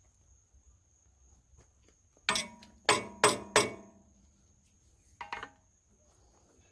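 Hammer blows ringing on steel at the flywheel hub of an International Type M 6 hp engine: four sharp strikes in about a second and a half, then two lighter taps, working to shock a stuck gib key loose.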